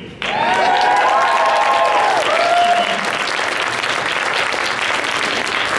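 Audience applause breaking out suddenly right after an award is announced, with high-pitched cheering voices over the clapping for the first few seconds.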